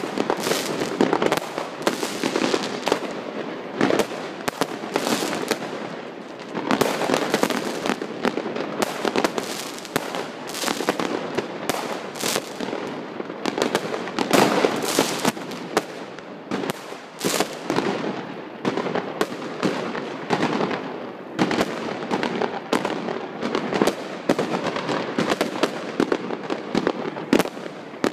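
Many fireworks going off at once: a continuous barrage of bangs and crackling, with sharper, louder reports scattered throughout.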